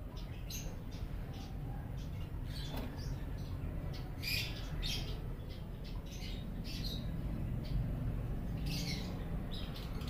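Lovebirds giving short, shrill chirps and squawks at irregular intervals, the loudest about four seconds in and again near the end, over a steady low background rumble.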